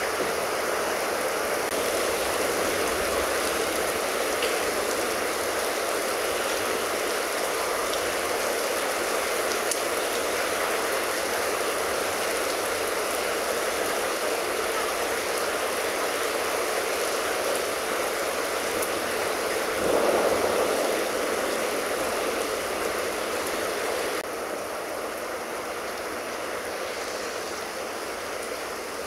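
Steady hiss of rain falling during a thunderstorm. It swells briefly about two-thirds of the way through, then drops a little softer.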